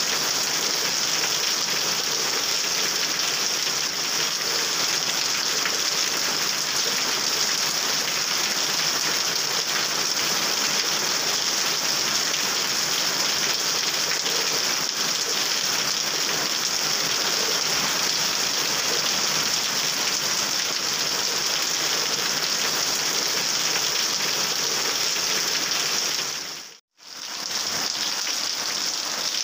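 Heavy rain falling steadily on a wet road and into puddles, a dense, even hiss. Near the end it fades out for a moment and comes straight back.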